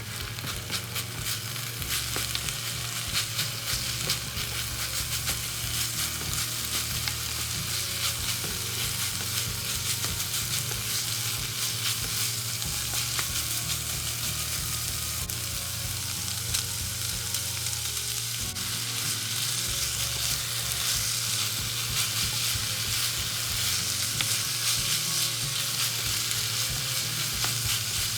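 Food sizzling and crackling in hot oil in a pan, steady throughout, with a steady low hum underneath.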